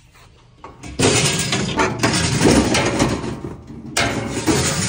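Metal parcel drop-bin door at a post office being worked and boxes pushed against it, giving loud scraping and rattling. It starts suddenly about a second in and comes again in a second burst near the end.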